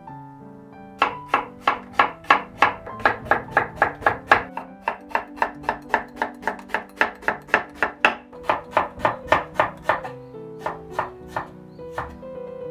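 Knife slicing eggplant on a wooden cutting board: quick, even cuts about three a second, starting about a second in and growing sparser near the end. Soft background piano music plays under it.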